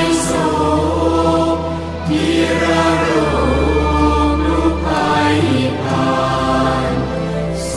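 A Thai Buddhist devotional song is sung in slow, drawn-out phrases over musical accompaniment with a steady low bass. The sung line changes about every two to three seconds.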